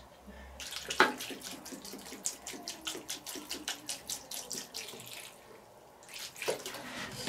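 Water poured from a plastic bottle into a cast-iron Dutch oven, splashing over the potatoes and meat inside, with a sharp knock about a second in. The pouring eases off for a moment near the end.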